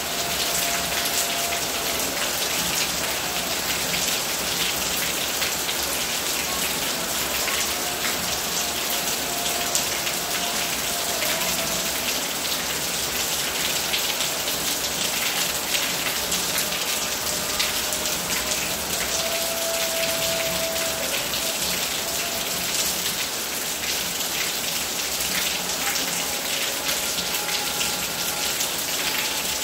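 Steady rain falling on surfaces: a dense, even hiss of drops. Faint thin tones come and go in the background, each lasting a few seconds.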